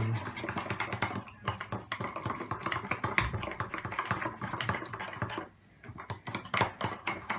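A utensil beating mug-cake batter in a cup: quick, uneven clicks of metal against the cup's wall. The beating pauses briefly about five and a half seconds in, then starts again.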